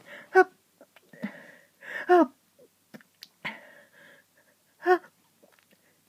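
A person sneezing three times in a hayfever sneezing fit, about one to three seconds apart. Each sneeze is a short, sharp voiced burst that follows a quick breathy intake.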